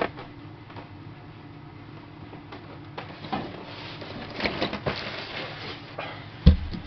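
Parts of a boxed salon hair dryer being handled during unpacking: scattered light knocks and clicks of plastic parts and packaging from about three seconds in, with one sharper knock near the end.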